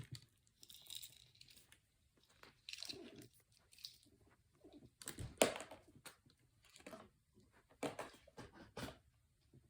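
Handling noise from a plastic AC power adapter and its cord being turned over and examined: scattered light clicks, knocks and rustles at irregular intervals, the loudest about five and a half seconds in.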